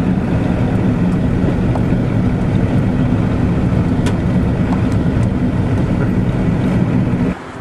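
Cabin noise of a slowly moving vehicle: a steady low engine hum with road noise, heard from inside. It cuts off abruptly near the end.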